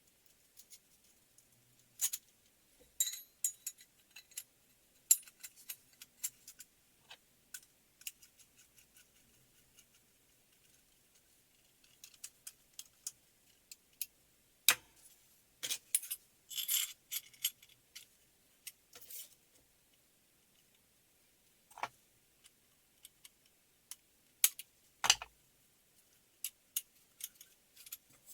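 Irregular metallic clinks, taps and knocks as the steel parts of a homemade motorcycle muffler are handled and fitted together, with clusters of rapid clinks around the middle and a few louder knocks.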